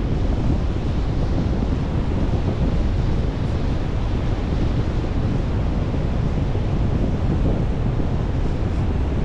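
Wind buffeting the microphone with a steady low rumble, over the continuous wash of ocean surf.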